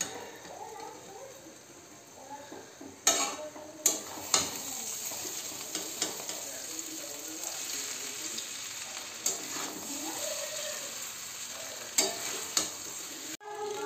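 Chowmein noodles sizzling in a metal kadai as they are stirred and tossed with a spatula. The frying hiss gets stronger about three seconds in, and there are sharp clacks of the spatula against the pan, several near the start and a couple near the end.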